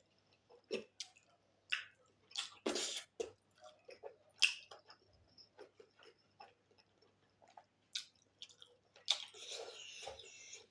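Close-miked chewing of pork and rice: irregular wet smacks and mouth clicks, with a longer hiss-like stretch near the end.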